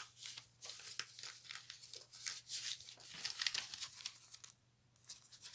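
Paper rustling and crinkling in quick handling strokes, stopping about four and a half seconds in.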